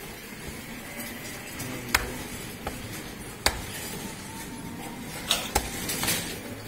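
Meat cleaver chopping goat meat on a wooden log block: sharp single chops spaced a second or more apart, the two loudest about two and three and a half seconds in, then three quicker chops near the end.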